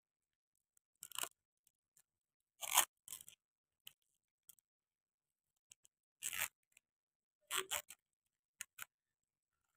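Thin plastic takeaway container being pried open by hand: about six short crinkling, scraping crackles of the stiff plastic lid and wrapping, with quiet gaps between them.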